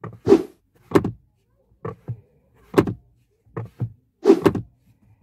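Plastic door-pocket lid in a Renault Megane 2's door being flipped open and snapped shut again and again on its repaired rubber hinge, giving a run of short clacks and thunks, often in pairs.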